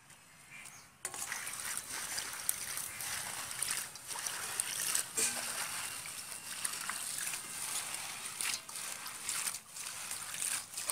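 Water splashing and sloshing in a steel bowl as hands stir and wash red spinach leaves in it, starting about a second in.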